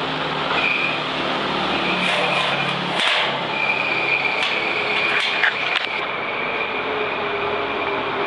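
Industrial drum mixer running: a steady mechanical rumble with a high, steady whine, and a few sharp knocks.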